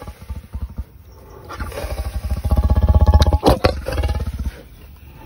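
A male lion's low, rumbling growl close by: it starts softly, swells to its loudest about three seconds in, then fades out about a second later. Two sharp clicks sound near its peak.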